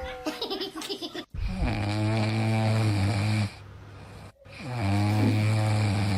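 Loud snoring: two long, drawn-in snores with a low, steady rattle, about three seconds apart, with quieter breathing between them. Music cuts off just before the first snore.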